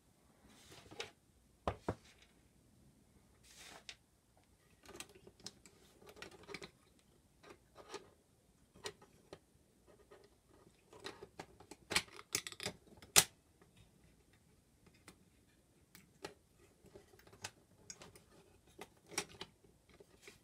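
Small metal drive parts being handled and fitted: irregular clicks, taps and scrapes as a cast aluminium bracket with a white pulley is set onto a QuickDisk drive's sheet-metal chassis and worked with a screwdriver. The sharpest clicks come about twelve to thirteen seconds in.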